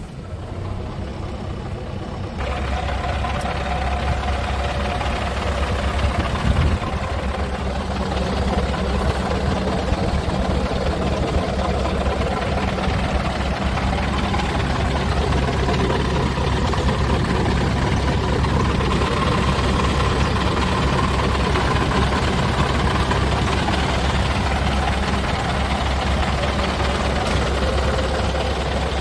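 Scania truck diesel engine idling steadily, with a low, even hum. It gets louder after about two seconds.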